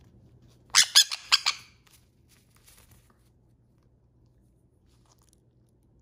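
A Quaker parrot and a sun conure squabbling: a quick string of about five loud squawks lasting about a second, starting about a second in. It is a brief spat, the normal bickering between flockmates.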